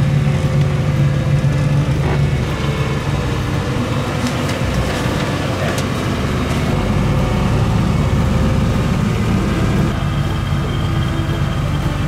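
A steady engine drone, changing in tone a few times.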